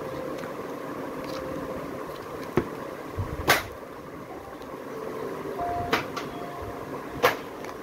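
Thick cardboard board books being handled: a page flipped and books shifted and set down, giving several sharp taps and knocks over a steady background hum.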